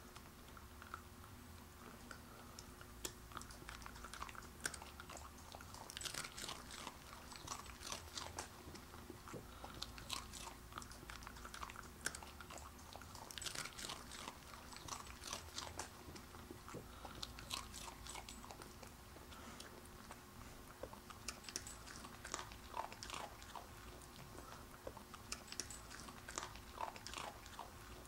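Corgi crunching and chewing a dog treat: irregular clusters of crisp crunches every few seconds.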